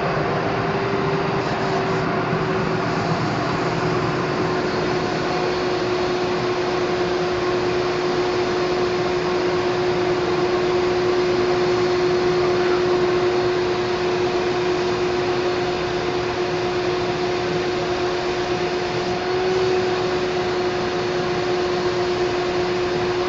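HVLP spray rig running, with a steady motor hum and hissing air as clearcoat is sprayed through the gun with a new air cap. The hum drops slightly in pitch about two seconds in and lifts briefly near the end.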